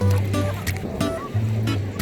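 Background music: a light tune of short held notes over a bass line, with a regular percussive beat.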